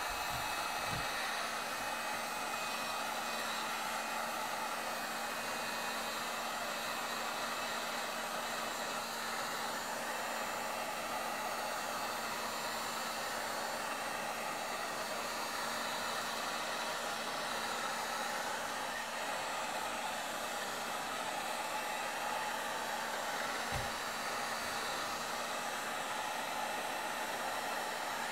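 Heat gun blowing steadily, a rush of hot air over a low, even motor hum, warming a phone's screen to soften its adhesive before the glass is pried off.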